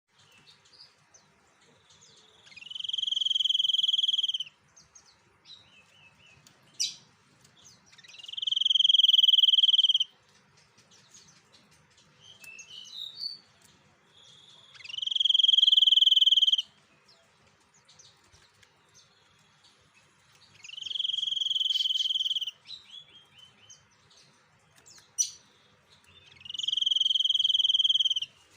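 White-breasted 'Sniper' songbird singing in full voice (gacor): five long, steady, high whistles of about two seconds each, one every six seconds or so, with short chirps and ticks in between.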